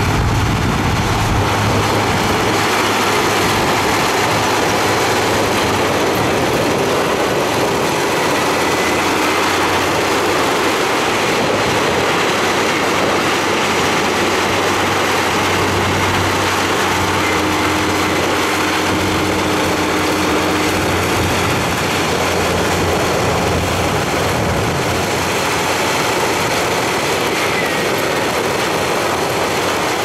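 Komatsu crawler bulldozer's diesel engine running steadily under load as the dozer pushes soil with its blade.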